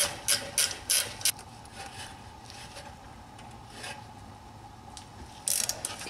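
A ratcheting wrench clicks as the upper rear brake caliper guide bolt is snugged down, about three clicks a second for the first second and a half. After a pause of a few seconds there is a short cluster of clicks near the end.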